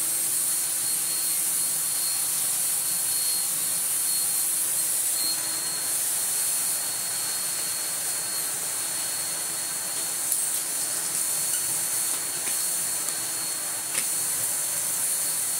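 1986 Electrolux Turbomatic Z380 canister vacuum cleaner running steadily: a strong airflow hiss with a high-pitched whine from the motor, as the floor head is pushed back and forth over a rug. A few light knocks can be heard about ten and fourteen seconds in.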